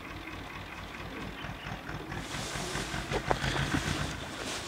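Low steady rumble of a running engine, with a hiss that grows about two seconds in and a few soft clicks a little after three seconds.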